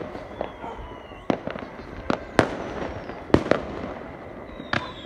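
Fireworks going off: about ten sharp bangs at irregular intervals, with thin whistles that fall slowly in pitch between them.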